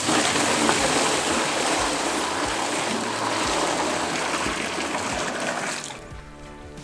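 Water being poured from a plastic pail, a steady rushing splash that stops suddenly about six seconds in.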